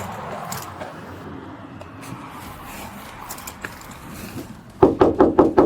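Background noise, then near the end a rapid run of loud knocks, about six or seven a second, like fast pounding or knocking.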